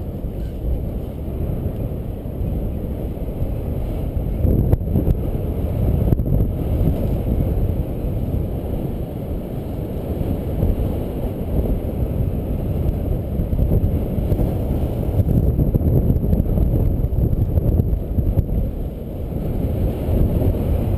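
Wind rushing over the camera microphone as a paraglider glides in to land: a steady, low rumbling buffet of airflow noise.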